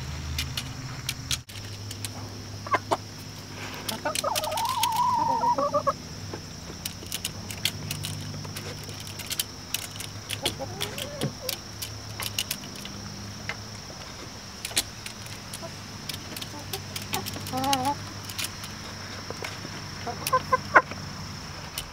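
Hens clucking, with a longer wavering call about four seconds in, over many sharp ticks as their beaks peck at the pins of red poultry nipple drinkers set into a PVC water pipe.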